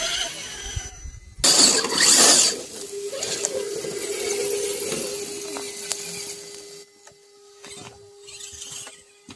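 Radio-controlled scale crawler trucks' electric motors and geartrains whining as they crawl over snowy rock. Loud noisy bursts in the first couple of seconds, then a steady whine from about three seconds in that fades after about seven.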